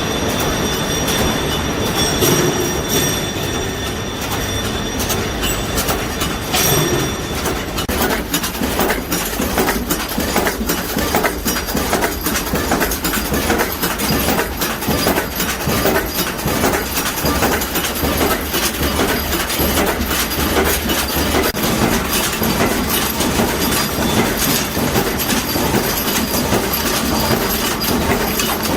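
Bolt, pin and rivet heading machine running, its strokes making a fast, even mechanical clatter. The clatter stands out more clearly from about eight seconds in.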